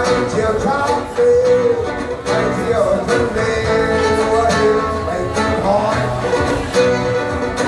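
A man singing while strumming an acoustic guitar, a live solo acoustic performance.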